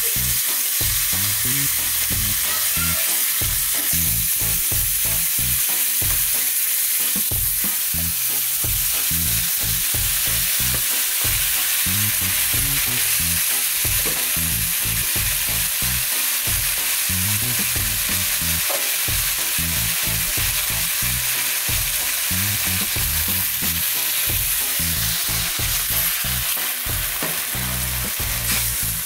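Fish and sliced vegetables frying in oil in a nonstick frying pan: a loud, steady sizzle.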